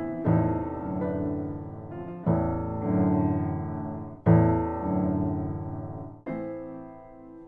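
Slow piano music: a chord struck about every two seconds, each left to ring and fade before the next.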